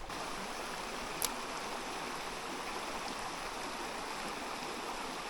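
Small creek's water flowing and rippling in a steady rush, with one light tick about a second in.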